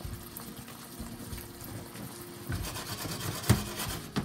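Wooden spatula stirring and scraping sliced vegetables and ham in a frying pan: a run of soft, irregular scrapes and knocks, with one sharp knock about three and a half seconds in.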